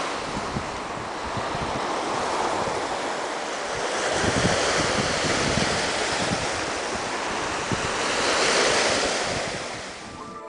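Sea waves breaking and washing over a rocky shore, rising and falling in swells, with wind buffeting the microphone.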